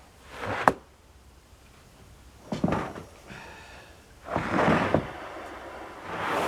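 Sawn wooden boards knocking and sliding against each other as they are set onto a stack, about four separate clunks and scrapes.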